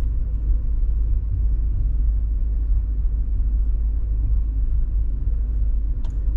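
Steady low rumble of a car's engine and tyres heard from inside the cabin while driving, with a faint steady hum above it.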